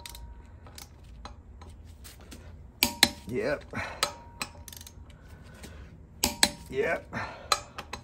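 Click-type torque wrench and socket clicking and clinking on the belt pulley bolts of a Harley rear wheel as their 80 ft-lb torque is checked. The clicks come in two bursts, about three seconds in and again about six seconds in, each followed by a short rising squeak.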